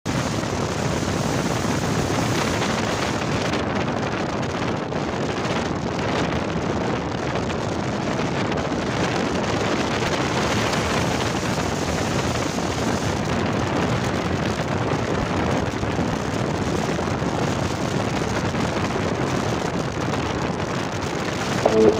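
Steady rush of wind on the microphone with road noise from a moving car, recorded out of the side window. Music comes in just before the end.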